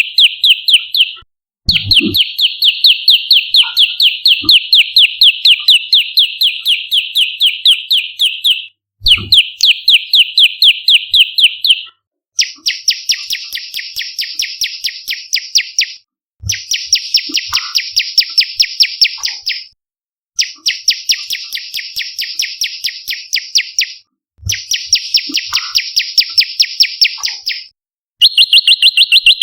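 Prenjak lumut calling loudly: rapid trains of sharp repeated notes, about four a second, in bouts of several seconds with short breaks. The middle bouts are higher and buzzier than the first ones.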